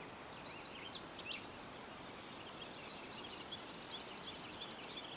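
Small birds singing faintly: quick sweeping chirps, then a fast trill of rapidly repeated notes about three to four seconds in, over a soft steady hiss.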